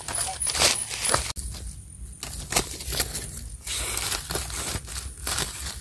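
Dry leaf litter rustling and crackling while a knife blade scrapes and clicks in the soil to dig out a wild egg mushroom: a string of short, irregular clicks and crackles.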